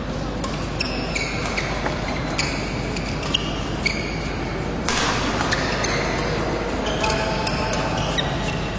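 Sports shoes squeaking on an indoor court floor, short high squeaks in quick succession over steady hall noise. There are a few sharp hits, and a sudden louder burst of noise about five seconds in.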